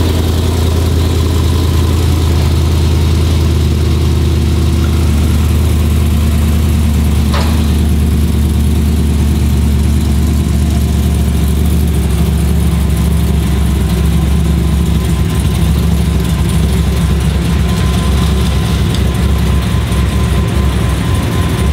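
Chevy Silverado pickup's engine idling steadily as the truck is rolled off a flatbed trailer, with a single click about seven seconds in.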